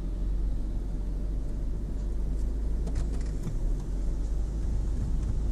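Automatic car wash heard from inside the car: a steady low rumble of the rotating brushes and water working over the car body, with a few light ticks about halfway through.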